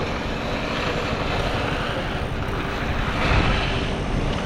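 An engine running steadily under strong wind buffeting the microphone.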